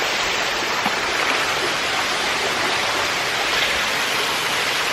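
Steady rush of stream water running close by.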